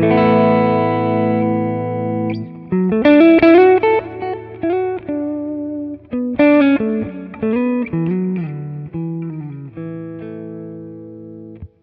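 Electric guitar played through a Neural DSP Quad Cortex preset: a Lone Star amp model with the gain pushed up a little, dual delay and Plate Lush reverb. A chord rings for about two seconds, then comes a run of single-note lead phrases, ending on another held chord that cuts off sharply.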